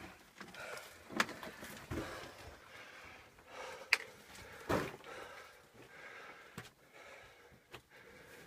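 Footsteps and scrambling on rock: scattered scuffs and about half a dozen sharp knocks, irregularly spaced, as a person clambers over the stony floor of a mine tunnel.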